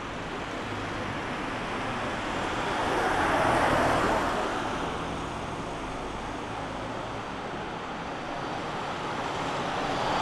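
Street traffic: a passing vehicle's tyre and engine noise swells to its loudest about four seconds in and fades, and another vehicle approaches near the end.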